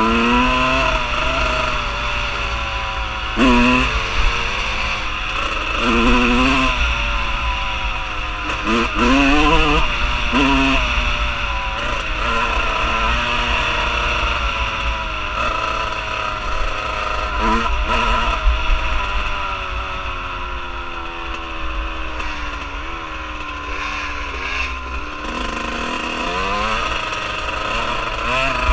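Dirt bike engine under way on a dirt track, revving up repeatedly through the gears and easing off, with a long falling tone around twenty seconds in as it slows. Wind rumbles on the microphone underneath.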